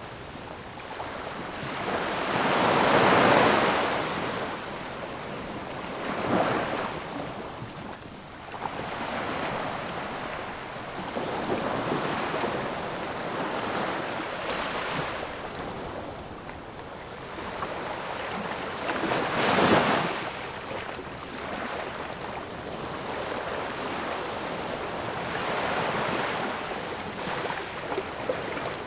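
Sea waves breaking on a shore: a continuous wash of surf that swells and falls, with two big breakers, one about three seconds in and another near twenty seconds.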